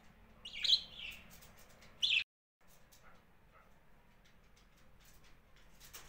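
Pet budgerigar chirping: a loud call about half a second in and a short, sharp call near two seconds, followed by faint clicks.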